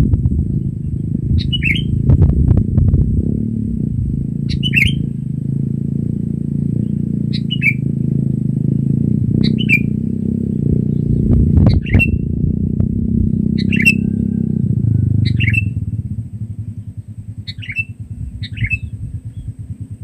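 Sooty-headed bulbul (kutilang) giving short, sharp calls, each a quick downward note, repeated every two to three seconds, nine in all. Under them runs a steady low rumble that fades out about 15 seconds in.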